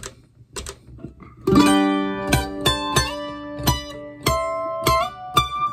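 A few sharp clicks, then an electric mandolin picking a short single-note phrase through a Mooer Black Truck multi-effects unit. The notes ring on and overlap under a delay set just a bit behind the playing.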